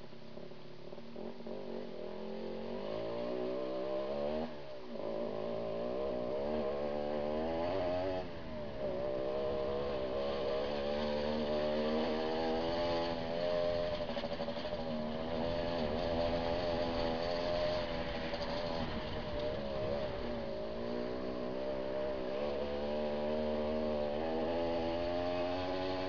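Motorcycle engine pulling up through the gears, its revs climbing and dropping at gear changes about four and eight seconds in. It then runs at a fairly steady speed with the revs wavering slightly.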